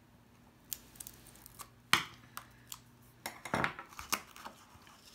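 Card stock box being worked by hand: scattered sharp taps and clicks of paper and a small tool against the tabletop as the backing is picked off double-sided tape and the flap is pressed shut. The loudest tap comes about two seconds in, with a cluster of paper rustles and clicks around three and a half seconds.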